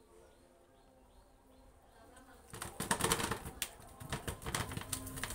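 Boiled chicken meatballs rolling and knocking against each other in a plastic colander as it is tilted to tip them into a plastic basin. It is a dense run of soft clatters and rustles that starts about halfway through.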